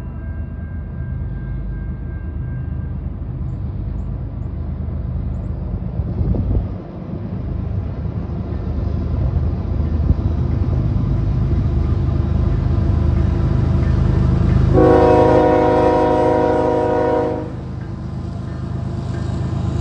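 Approaching freight train, the low rumble of its diesel locomotives building. The lead locomotive, a GE ES44AC, sounds one long horn blast of about two and a half seconds near the end.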